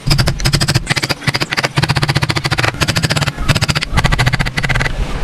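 A woodworking hand tool cutting wood in bursts of rapid, even clicking strokes, each lasting under a second, with short pauses between.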